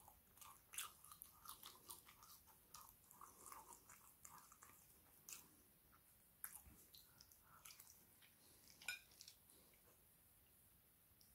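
Faint, close-up chewing and wet mouth sounds of a person eating BBQ chicken wings and chips: many small clicks and smacks, which thin out near the end.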